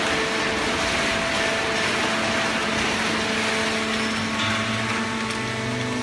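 Fully automatic horizontal hydraulic waste paper baler and its feed conveyor running: a steady machinery noise with a few even hums, and a deeper hum joining about four and a half seconds in.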